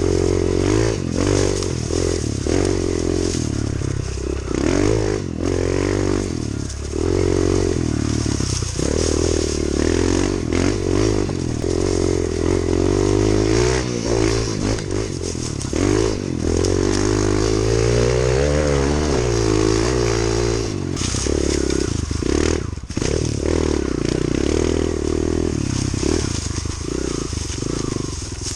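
Kawasaki KLX110's small single-cylinder four-stroke engine riding under load, its note rising and falling with the throttle. Occasional knocks and rattles come from the bike over rough ground.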